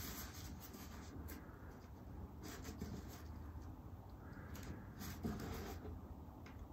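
Faint rubbing and soft scuffs of gloved fingers handling and pressing a strip of sign maker's tape onto an acoustic guitar top beside the bridge, in irregular light strokes.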